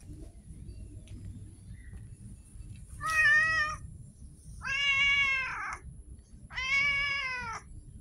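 Domestic cat meowing three times, each meow about a second long, with a pause of about a second between them.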